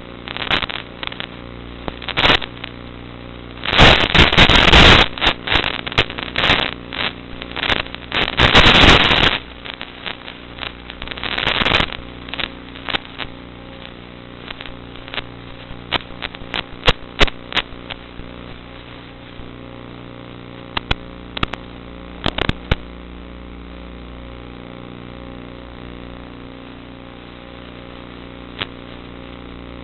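Zagi flying wing's motor and propeller running with a steady hum, broken by loud bursts of rushing noise about four and eight seconds in and many sharp crackles that die away past the middle.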